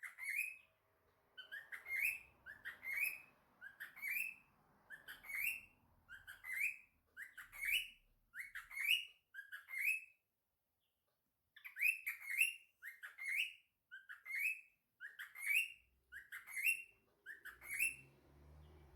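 Cockatiel chirping: short rising chirps, repeated in quick clusters about once a second, with a pause of a second or so about ten seconds in.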